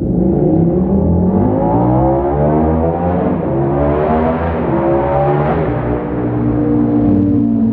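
KTM 1290 Super Duke's V-twin engine through an Austin Racing exhaust with the dB killer removed, accelerating hard: the pitch climbs, breaks at a gear change and climbs again, then settles lower and steadier near the end. The sound echoes off the tunnel walls.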